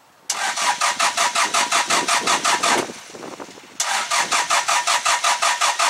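Perkins 4.236 four-cylinder diesel being cranked by its starter, an even chugging of about nine compression strokes a second, in two tries: the first lasts about two and a half seconds, the second begins about four seconds in. The engine turns over but never fires. The freshly rebuilt engine won't start, a fault the owner traced to a misfitted O-ring in the fuel filter housing.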